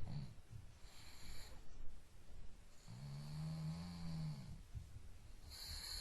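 Pug snoring in its sleep: three hissing breaths about two seconds apart, the middle one a long, low, pitched snore lasting about a second and a half.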